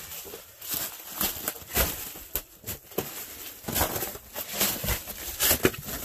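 Footsteps and scrambling over dry leaves and snow: irregular crunches and scuffs, two or three a second.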